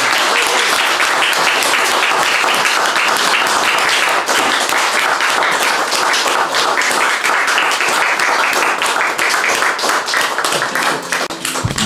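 Audience applauding, a dense steady patter of many hands clapping that thins out near the end.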